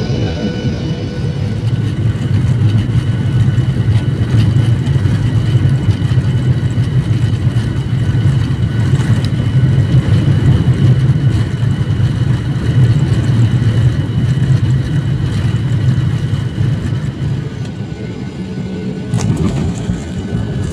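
Airliner engine noise during landing: a loud, steady low rumble with faint steady whines above it. It eases slightly and shifts abruptly near the end.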